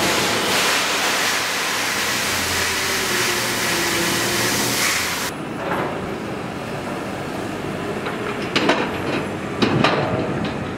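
Grain pouring out of a large telehandler bucket into a trailer, a steady rushing hiss that cuts off abruptly about halfway through. Then comes a quieter sound of sawdust sliding out of the bucket over the telehandler's engine running, with two sharp metallic knocks about a second apart near the end.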